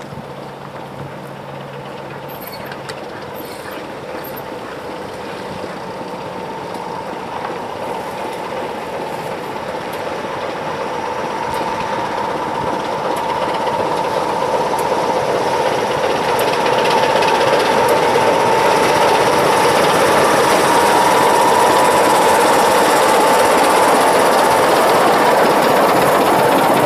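Class 25 diesel locomotive D5185 and its coaches running in, getting steadily louder as the train approaches over the first fifteen seconds or so, then holding loud and steady as it draws alongside.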